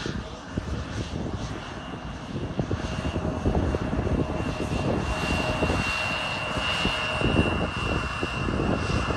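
Bombardier CRJ-700 regional jet's twin General Electric CF34 turbofans at departure power: a loud, rough, crackling low rumble with a steady high fan whine above it.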